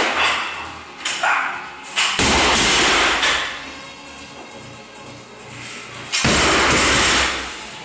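Loud background music, with two loud surges about two and six seconds in.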